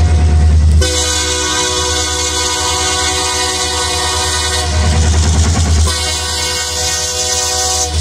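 Diesel freight locomotive's air horn sounding two long blasts for a road grade crossing: the first, about four seconds long, starts about a second in, and after a short break a second of about two seconds follows. The low rumble of the locomotives' engines runs underneath and comes through more in the gap between blasts.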